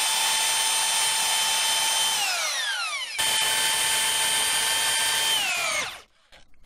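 Bosch Professional power drill boring through thin sheet-metal van wall: a steady high motor whine that winds down with falling pitch about two seconds in, starts again abruptly a second later and winds down once more near the end. These are two holes for a rivnut, a 5 mm pilot hole and then the 9 mm hole.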